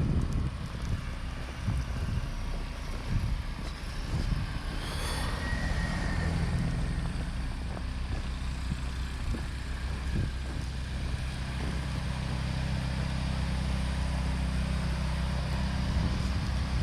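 Motor vehicle engine running with a steady low hum, while wind buffets the microphone in gusts during the first few seconds.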